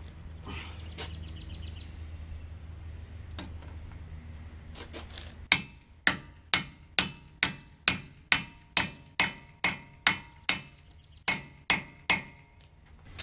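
Hammer tapping a large socket held over a Fox-body Mustang's front hub to drive the wheel-bearing dust cap on: about fifteen sharp metallic taps with a ring, roughly two a second, starting about five seconds in, with a brief pause near the end. Softer clicks and handling before the tapping starts.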